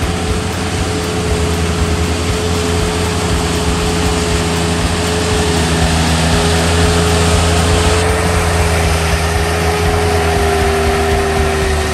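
Ride-on power trowel's engine running steadily as its rotating blades smooth wet concrete, with a steady whine that dips slightly in pitch near the end.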